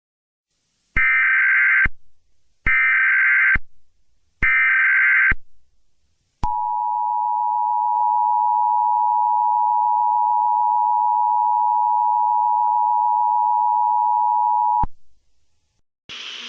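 Emergency Alert System SAME header: three short bursts of buzzy digital data tones, each about a second long. It is followed by the two-tone EAS attention signal, held steady for about eight seconds, which cuts off abruptly.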